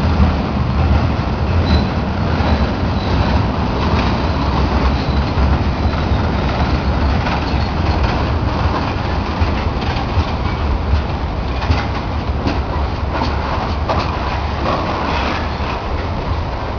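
Steel-loaded gondola cars of a freight train rolling past, a steady rumble of wheels on rail with scattered sharp clicks and clanks, more of them in the second half.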